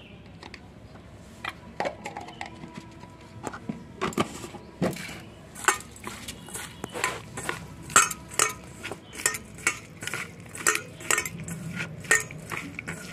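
Metal kitchenware clinking against a bowl: sharp, irregular clinks, a few at first, then about two a second from roughly four seconds in, as salt and turmeric are mixed into small kachki fish.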